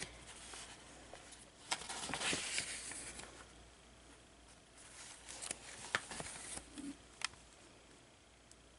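Pages of a thick, collaged art journal being turned by hand: two spells of paper rustling and sliding, with a few sharp ticks, about two seconds in and again around five to seven seconds in.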